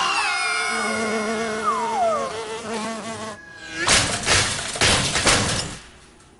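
Cartoon sound effects: a fly buzzing, with pitched tones sliding downward over the first couple of seconds. About four seconds in comes a flurry of loud noisy strokes lasting nearly two seconds.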